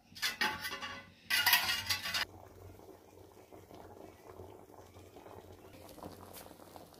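Food cooking in metal pots and pans over a wood fire: two loud noisy bursts in the first two seconds, then a softer steady cooking noise with light metal clinks.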